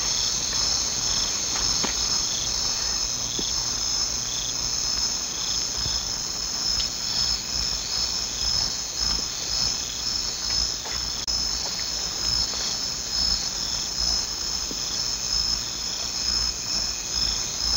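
Night insect chorus: a steady high trilling, with a pulsing chirp repeating about twice a second, and a few faint scattered clicks.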